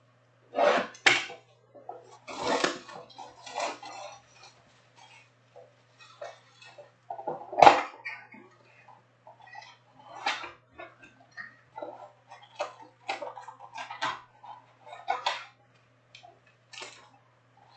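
Hands tearing the shrink wrap off a sealed trading-card box, opening its cardboard flaps and handling the stack of cards inside: irregular crinkles, rustles and taps, loudest about eight seconds in, over a faint steady low hum.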